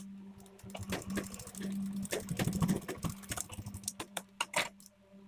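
Scissors cutting blouse fabric at a sewing machine, with fabric being handled: a run of irregular clicks and snips, with a few sharper snips near the end.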